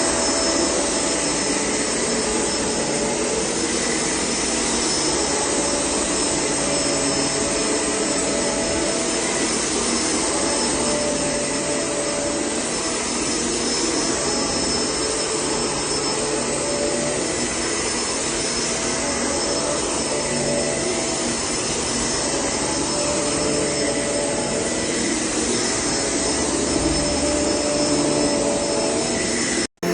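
Shark upright vacuum cleaner running steadily at full power: a loud, even rush of air with a faint high whine. It cuts off abruptly near the end.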